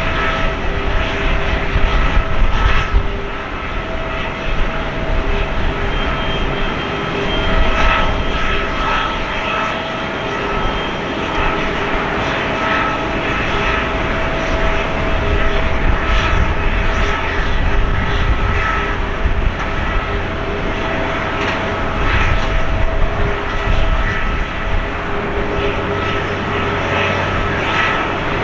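Four Rolls-Royce Trent 500 turbofans of an Airbus A340-600 taxiing at low thrust: a steady jet whine with several held tones over a low rumble.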